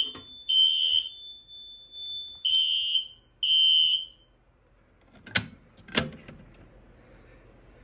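System Sensor fire alarm horns sounding in sync in the temporal-three evacuation pattern: three half-second blasts, a pause, then two more blasts before the alarm is silenced about four seconds in. Two sharp clicks follow a second or two later.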